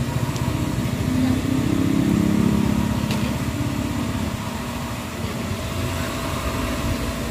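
Spa circulation pump running with a steady low hum and rumble, pushing water through the jacuzzi while the new electric heater warms it.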